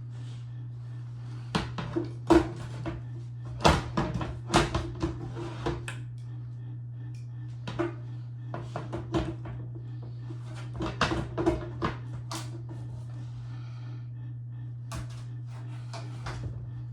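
Irregular clicks and knocks of hard parts being handled and set down while working on a computer, over a steady low hum.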